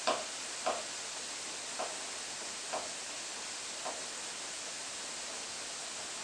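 Kitchen knife slicing mushrooms on a plastic cutting board: five short taps of the blade in the first four seconds, each fainter than the last, over a steady hiss.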